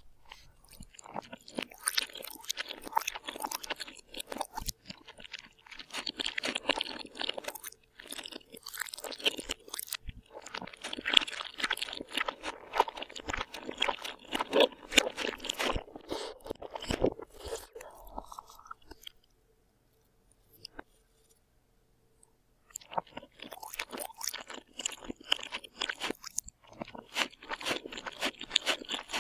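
A person chewing and crunching food, with dense crackly bites and chews. The sound stops for about three seconds past the middle, then resumes.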